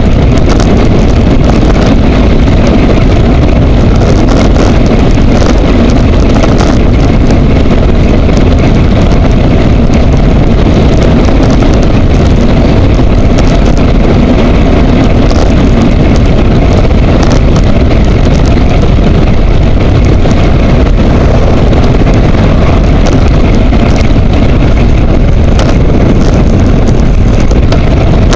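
Loud, steady rush of wind buffeting a handlebar-mounted camera's microphone on a road bike riding at speed, with scattered sharp clicks throughout.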